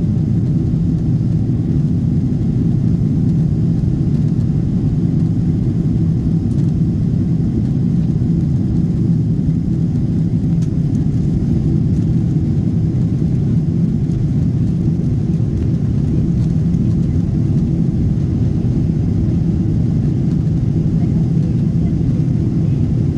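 Steady low rumble of an airliner's jet engines and airflow, heard inside the passenger cabin.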